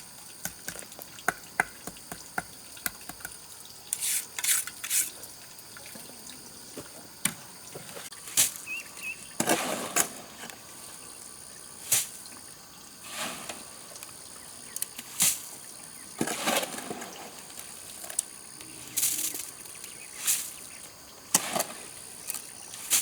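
Irregular splashes and drips of water, one every second or two, some brief and sharp, some lasting about half a second.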